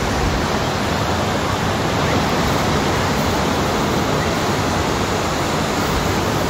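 Sea surf washing into a rocky cove below cliffs: a loud, steady rushing with no breaks.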